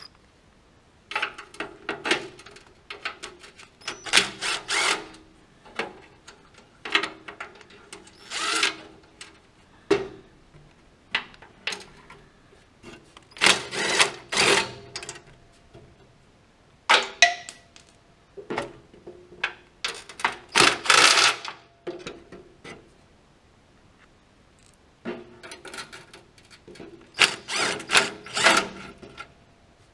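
Electric drill fitted with a socket, run in about a dozen short bursts of one to two seconds each, driving fasteners.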